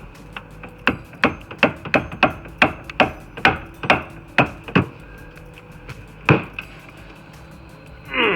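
A hammer striking a stuck part under a car in a quick series of about a dozen blows, two to three a second, then one more blow about a second and a half later.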